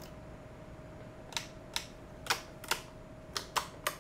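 Sharp plastic clicks, about seven in the last three seconds, unevenly spaced, from the FrSky Horus X10S Express transmitter's switches being flipped, over a faint steady whine.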